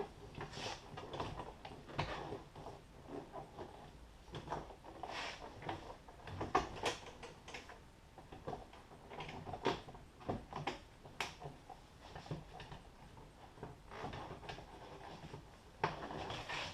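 Plastic car door trim panel being worked into place against the door, with irregular knocks, clicks and rubbing as it is shifted and pressed onto its tabs.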